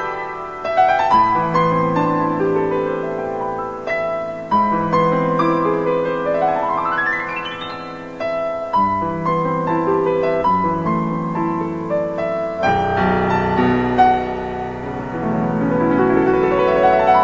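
Piano music, sustained chords and melody, with a quick rising run of notes about six seconds in and another near the end.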